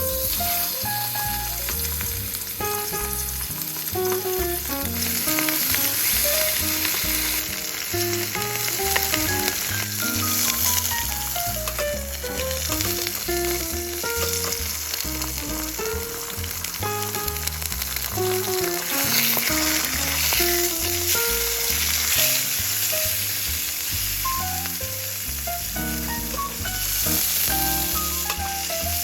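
Food sizzling steadily in a hot frying pan, with a light background music melody playing over it.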